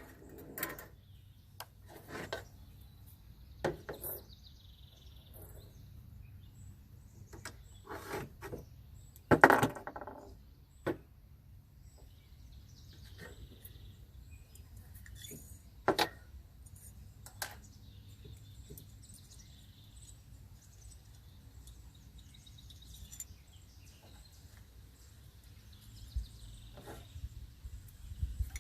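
Scattered clicks and knocks of gun parts being handled, as the striker assembly is moved into another bolt of a semi-auto Sterling Mk4 carbine. The loudest knocks come right at the start, about nine seconds in and about sixteen seconds in.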